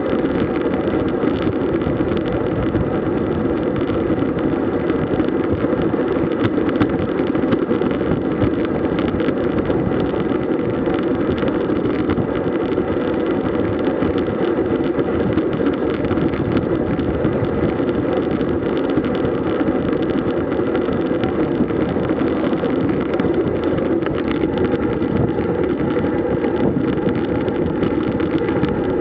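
Steady rush of riding at speed: wind buffeting the microphone with tyre and road noise, unbroken and loud throughout.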